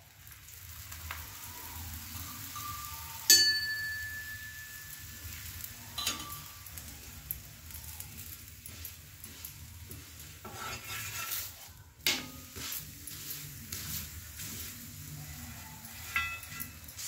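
A paratha frying in oil on a cast-iron tawa, sizzling steadily while a steel ladle presses and scrapes it. The ladle strikes the pan with a sharp, ringing clink about three seconds in, and clinks more lightly a few times later.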